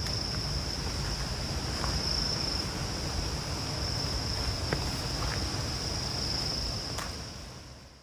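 Steady high-pitched insect drone over a low rumble, with a few faint ticks in the second half; it fades out near the end.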